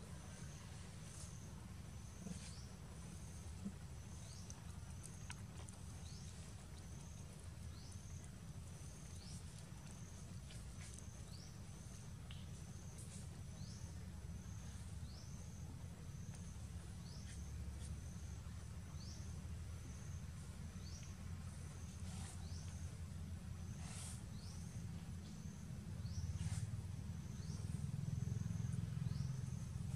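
A short high call repeating roughly once a second, each note dipping in pitch, over a low outdoor rumble that grows louder near the end.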